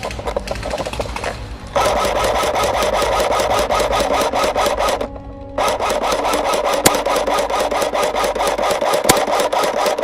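Airsoft electric gun firing on full auto: a rapid, even chatter of shots in two long bursts, the second starting about half a second after the first stops.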